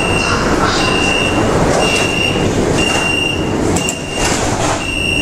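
Metro train door-closing warning: a high beep repeating about once a second while the car's doors slide shut, closing about four seconds in.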